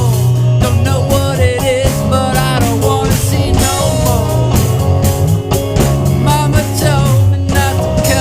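Rock band playing an instrumental passage with bass, drum kit and a lead line that bends in pitch.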